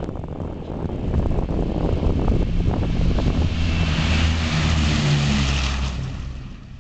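Boeing B-17 bomber's four radial engines at full takeoff power during its takeoff roll, growing louder as it approaches. Its pitch drops as it passes about five seconds in, and the sound fades near the end.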